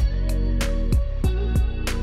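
Background music: held notes over a steady beat.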